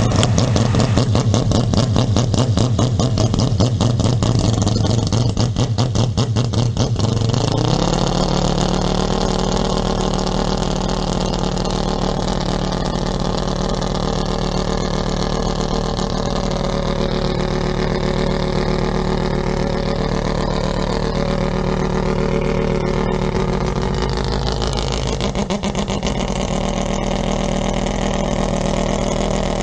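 Mazda 787B's four-rotor rotary racing engine idling, with a rapid, uneven pulsing for the first seven or eight seconds. About eight seconds in, the idle rises to a higher, steadier note and holds there.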